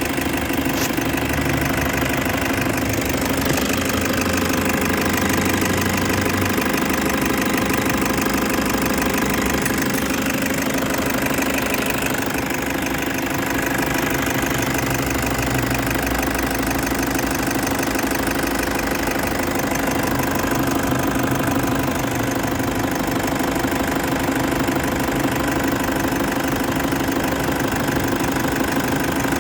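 Toyota HiAce engine idling steadily with a rapid, even knocking clatter.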